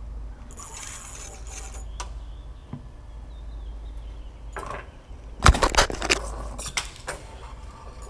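Handling noise while a fish is fought on rod and reel from a boat: a brief hiss about a second in, then a cluster of sharp knocks and clatter about five and a half seconds in.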